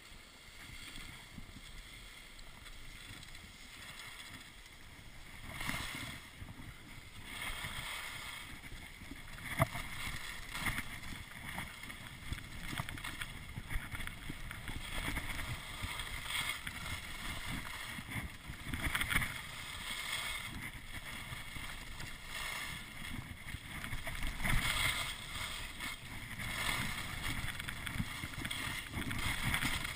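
Skis sliding and scraping over packed groomed snow, a hiss that swells again and again with the turns, mixed with wind rushing over the microphone. It is quieter for the first few seconds and grows louder about six seconds in, once the run gets going.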